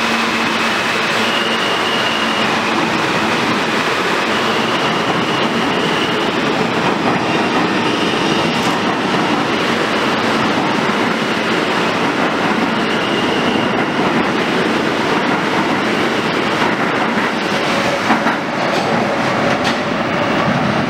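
New York City subway train running in the underground station: a loud, steady rumble of steel wheels on rail with clickety-clack, and a few brief high squeals or whines.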